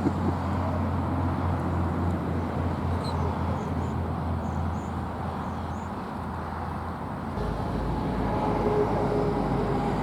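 Steady low rumble of distant road traffic, swelling a little in the last few seconds.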